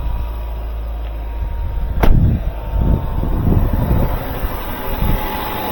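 2019 Kia Stinger's turbocharged 2.0-litre engine running just after a jump-box-assisted start on a weak battery. A sharp bang comes about two seconds in, followed by a few low thumps.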